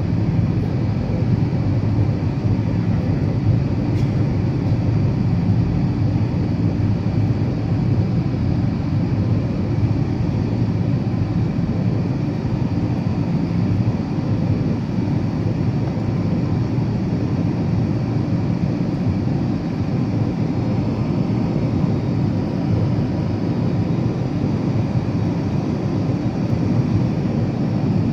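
Steady jet airliner cabin noise heard from a window seat over the wing: the even low rumble and rush of the Airbus A320-family's turbofan engines and airflow in flight.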